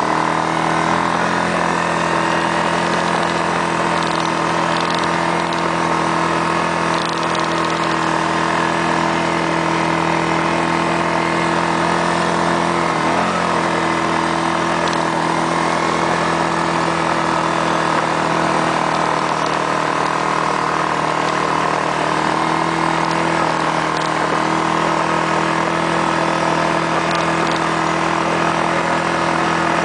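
ATV engine running at a steady speed while the machine drives through deep snow, with a brief waver in engine pitch about halfway through.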